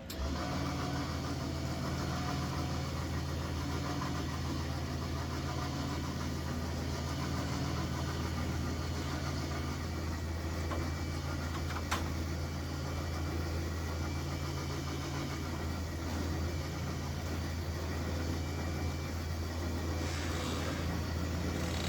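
A vehicle engine idling steadily, with a single sharp click about halfway through.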